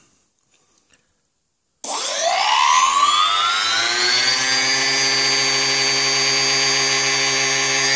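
Brushless electric motor of an RC plane's motor pod, running without its propeller: about two seconds in it starts and spools up with a rising whine, then holds a steady high whine with many overtones. It runs with quite a bit of vibration, which the owner takes for a loose or worn bearing.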